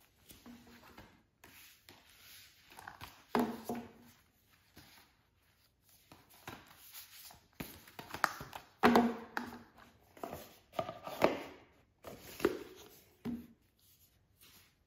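Hands handling a 4K disc case, card sleeves and art cards, and packing them into a cardboard box on a stone table top. Irregular rustles and sharp taps and knocks, the loudest about three, nine and eleven seconds in.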